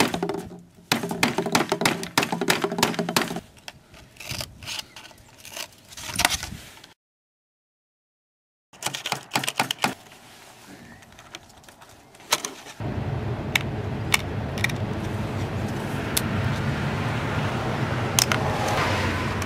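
Claw hammer tapping on a metal lid and a wooden box: quick runs of light knocks and clicks. After a brief silence come more scattered taps, and about two-thirds of the way through a steady rushing noise sets in under them.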